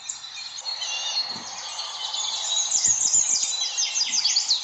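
Many birds chirping together in a dense, overlapping chorus of short high calls.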